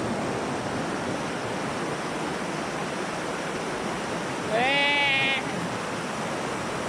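Waterfall rushing as a steady roar of falling water. A short, high-pitched voice call cuts over it for about a second, just before two-thirds of the way through.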